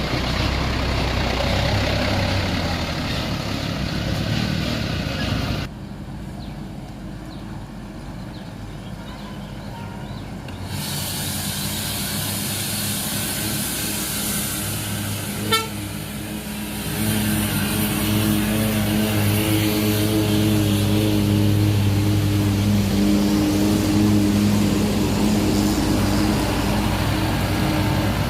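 Large buses on the road: diesel engines running, with a horn sounding loud and steady in the last part, after a sharp click about halfway through.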